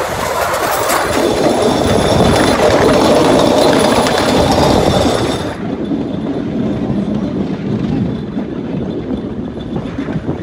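Cambodian bamboo train (norry) running along the rails: its small engine and steel wheels clatter and rumble on the track. About halfway through the sound turns abruptly duller as the hiss drops away.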